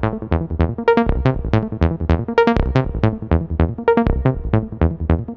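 Background music: a quick, even run of short plucked notes, about six a second.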